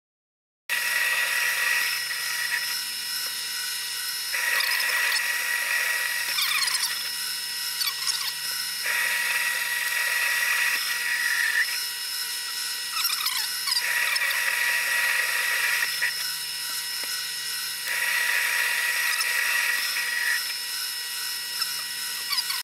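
Grizzly G0768 mini metal lathe running, its motor and drive whining steadily while a cutting tool hogs material off a steel part. A harsher cutting sound comes and goes every four or five seconds, with brief rising and falling squeals now and then.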